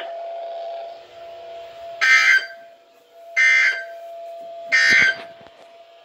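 Weather radio sounding the end-of-message data bursts that close an emergency alert broadcast: three short, harsh digital screeches about 1.3 s apart. A faint steady tone runs underneath.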